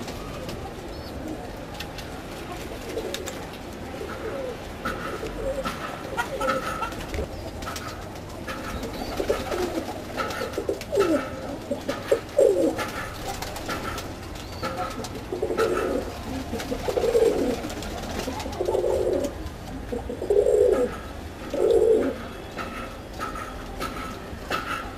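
Domestic pigeons cooing in their loft, a series of low coos that grows louder and more regular in the second half, about one every second and a half.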